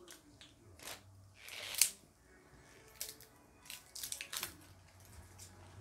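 Handling noises from opening a liquid lipstick's packaging: scattered rustles and clicks. The loudest is a short rising hiss that ends in a sharp click about two seconds in, with a quicker cluster of clicks near the middle.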